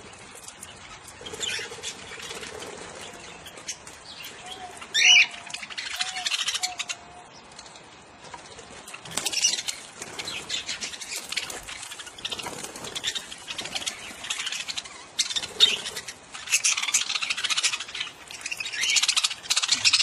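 A flock of budgerigars (parakeets) chattering and squawking, with one loud, sharp squawk about five seconds in and busier bursts of chatter near the end.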